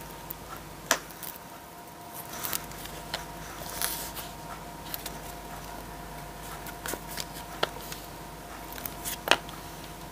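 Oracle cards dealt one at a time from a hand-held deck onto a tabletop. Each lands with a short, sharp tap at uneven intervals, several in all, over a faint steady hum.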